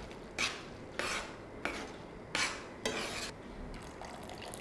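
Metal spoon stirring thick cooked urad dal in a steel frying pan, scraping across the pan in a wet, rhythmic stroke about every half second.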